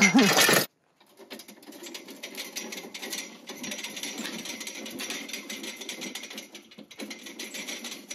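Roll of woven-wire fence turning on a pipe axle as it is pulled along the ground, a continuous fine rattling and clicking that starts about a second in.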